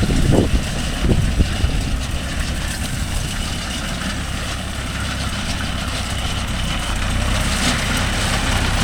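Mahindra Yuvo Tech Plus 585 4WD tractor's diesel engine idling steadily, with a couple of brief thumps in the first second or so.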